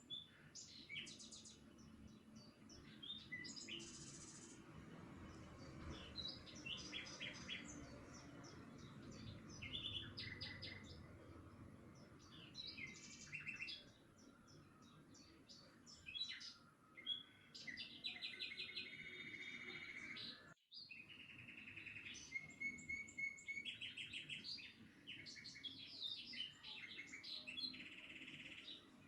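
Several small birds chirping and singing, with overlapping short calls and quick trills over a faint low background hum; the sound cuts out for a moment about two-thirds of the way through.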